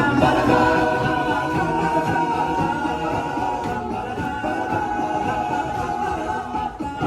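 An a cappella vocal group singing in harmony, several voices holding chords together.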